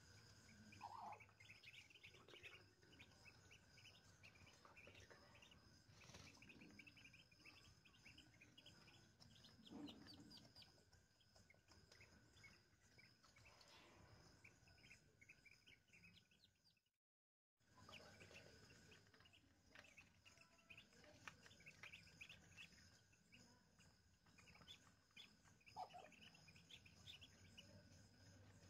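Newly hatched Muscovy ducklings peeping softly: many short, high chirps in quick succession, with a few lower calls among them and a faint steady hum behind.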